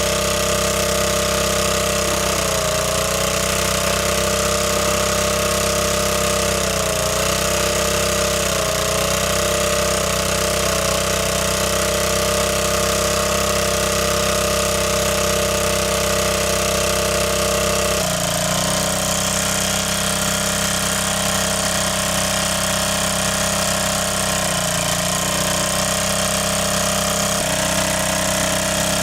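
A motor running steadily, its pitch dipping briefly several times as if under load, with shifts in its tone about two-thirds of the way in and again near the end.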